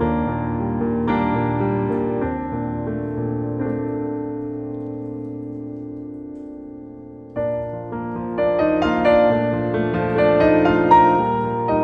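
Background piano music: a gentle phrase whose notes ring and slowly fade, then a new, busier phrase comes in a little past halfway.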